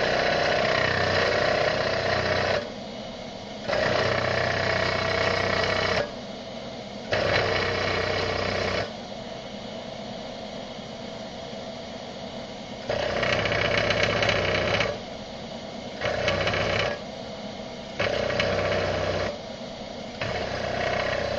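Comet 3KVHD vertical milling machine with its spindle running, its cutter biting into the metal of a wheel's center bore in seven separate stretches of about one to two seconds each as it is hand-fed, only just touching the bore on one side. Each cut brings a steady ringing tone over the quieter hum of the spindle.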